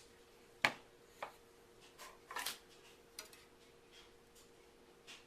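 A few light, scattered knocks and taps on a work surface, the sharpest about half a second in, with a short scrape near the middle, from handling and cutting a loaf of soft homemade soap.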